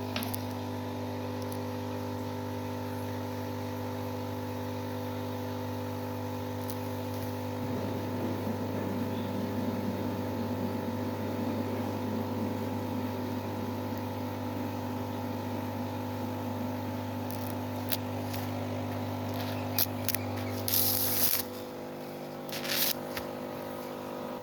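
Steady mechanical hum from a small motor, with several fixed tones. Near the end come a few sharp clicks and brief rustling bursts, and the deepest part of the hum cuts off.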